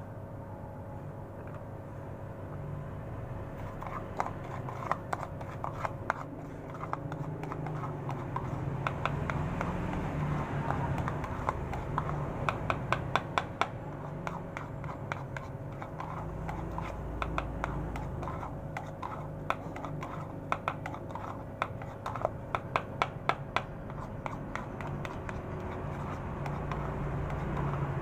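Metal spoon stirring wet catfish feed pellets in a plastic bowl: quick runs of clicks and scrapes as the spoon knocks the bowl, starting about four seconds in.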